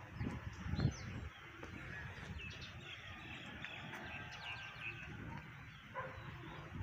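Birds chirping and calling in the surrounding trees, busiest in the middle of the stretch, over a few low rumbles near the start.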